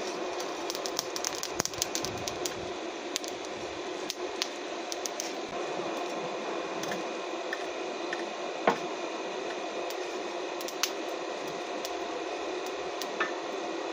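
Charcoal fire burning in a small brick forge: crackling with many sharp pops over a steady rushing hiss, one pop clearly louder about two-thirds of the way through.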